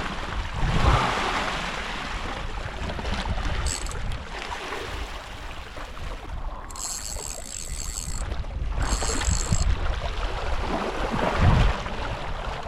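Wind buffeting the microphone over the wash of the sea, with two stretches of high buzzing about seven and nine seconds in.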